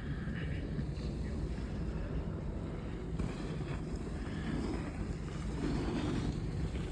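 Steady low rumble of wind on the microphone while riding a moving chairlift.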